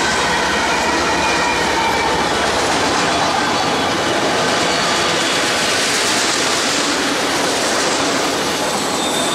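Freight train passing close by: the steady noise of steel wheels rolling on rail as a string of autorack cars goes by, with the last BNSF locomotive's engine heard in the first few seconds before it fades.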